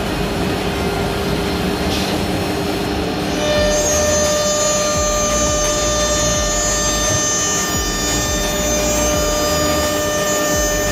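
A CNC nesting router's spindle machining a board, with steady machine noise throughout. About three and a half seconds in, a steady high whine with several tones sets in and the sound grows a little louder as the cutter works the panel.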